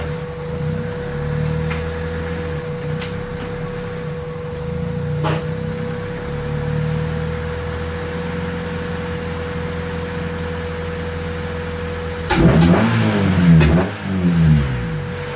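A 1996 Honda Civic's D16Y8 four-cylinder, with a muffler delete, runs steadily at low revs. It revs up and back down twice about twelve seconds in. A single short click comes about five seconds in. The rear engine mount's through-bolt has just been retightened, and the owner finds the clunk cured.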